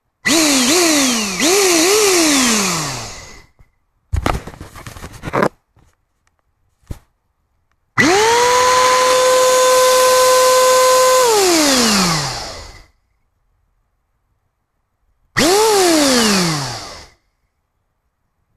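Vacuum cleaner motor with its fan being switched on and off: three quick bursts that whine up and coast down in pitch, then a run of about three seconds at a steady high whine with a loud rush of air before it winds down, and one more short burst near the end. A short rattle of handling comes between the bursts.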